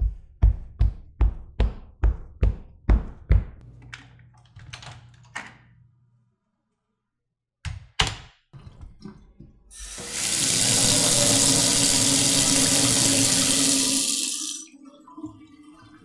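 Heavy footsteps on a floor, about two or three a second, trailing off after a few seconds. Next comes a door being opened and shut with a few knocks and latch clicks. Last, a faucet runs steadily for about five seconds and is turned off.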